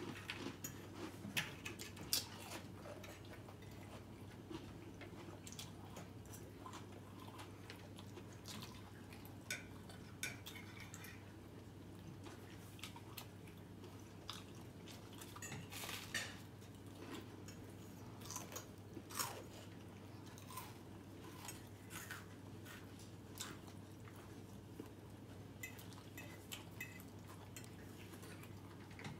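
Fork clinking and scraping on a dinner plate while eating: scattered light clicks, a few sharper ones, over a low steady hum.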